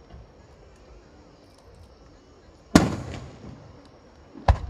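Aerial firework shells bursting: two booms about a second and a half apart, the first, near the middle, the louder, with a long rolling echo.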